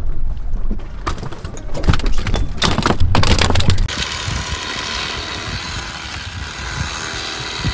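Wind rumbling on the microphone with knocks and rattles aboard a fishing boat; then, about four seconds in, the steady hum of a corded electric fillet knife running as it slices fillets from bass.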